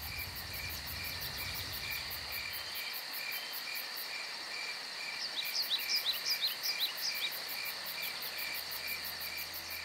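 A chorus of crickets and other insects: a steady high trill under a regular pulsing chirp about two or three times a second. About five seconds in, a flurry of quick high chirps joins it.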